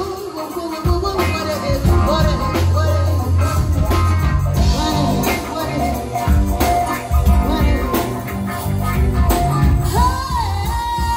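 Live soul band playing through a PA: drums, bass, electric guitar and keyboards with a singing voice over them. The bass and kick drop out for a moment at the start, and near the end a long high note is held.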